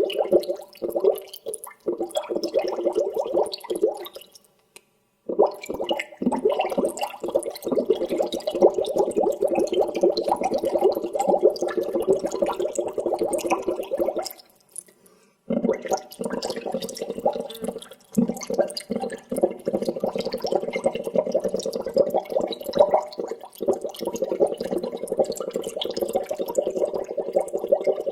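Water bubbling in a dense, rapid stream of gurgling bubbles, stopping briefly twice: about four seconds in and about fifteen seconds in.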